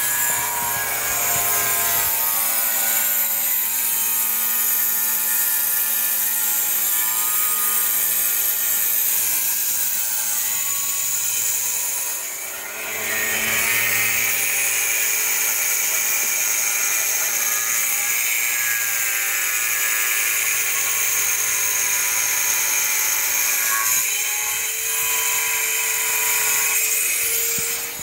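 Electric power tool motor running steadily with a whine that wavers a little in pitch, easing off briefly about twelve seconds in, then running on and stopping near the end.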